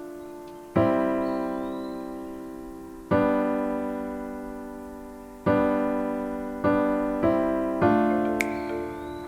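Background music: slow keyboard chords, each struck and left to fade, with the chords coming closer together near the end.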